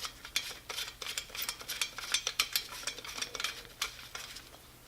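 Small metal parts and hand tools clinking and tapping irregularly, many quick light clicks, as muffler hardware is fitted onto a chainsaw.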